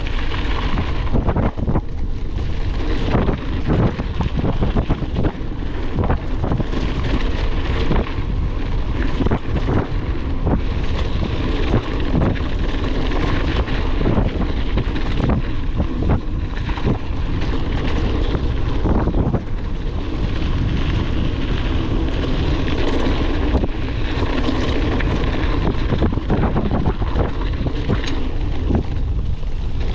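Wind buffeting the microphone of a bike-mounted action camera as a mountain bike rides over rough ground, with frequent rattles and knocks from the bike throughout.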